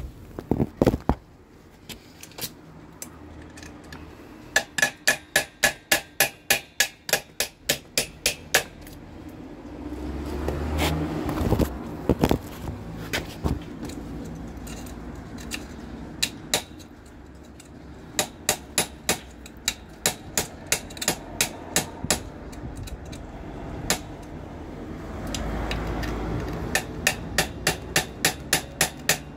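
Runs of sharp metal-on-metal strikes, a hand tool knocking at the steel frame of a baby pushchair, about three blows a second with pauses between the runs. A low rumble swells twice during the pauses.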